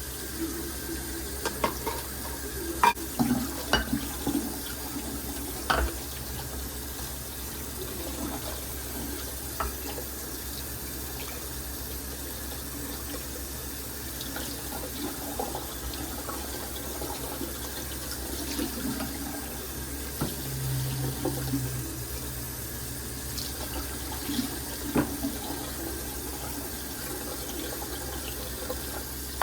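Water running steadily from a sink tap, with scattered clinks and knocks, a cluster of them in the first six seconds and another around 25 seconds in.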